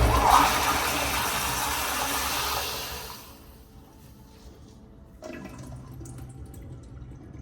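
Kohler Kingston wall-hung toilet flushing: a loud rush of water that dies away about three seconds in, then a fainter sound of water returning about five seconds in.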